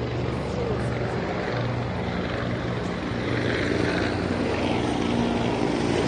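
Helicopter flying low and fast: a steady rotor and engine drone that grows slightly louder in the second half.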